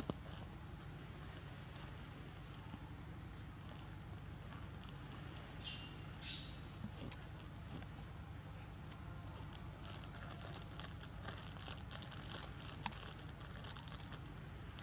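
Insects chirring steadily in a high, even drone, with scattered faint rustles and clicks and one sharper click near the end.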